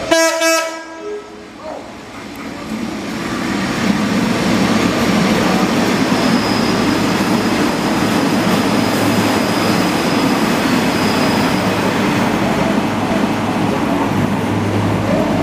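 Vintage diesel rail motor giving a short horn blast, then running past close by. Its engine and wheels on the rails build over a few seconds into a loud, steady rumble, with a faint thin squeal for a few seconds in the middle.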